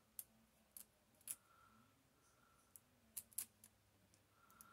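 A handful of faint, sharp clicks and ticks of fingernails picking at the edge of a paper postage-stamp sticker, trying to lift it off its backing.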